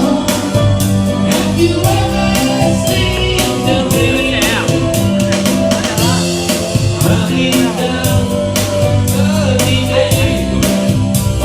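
A band playing a rock song, with a steady drum beat, guitar and bass under a singing voice.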